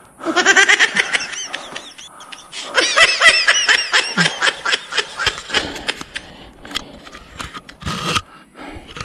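A person laughing in two bouts, the second starting about three seconds in, winded from a steep climb.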